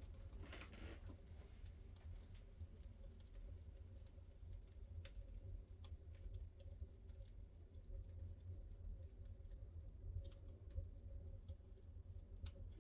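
Fire in a fireplace crackling faintly, with scattered irregular pops and ticks over a low steady rumble.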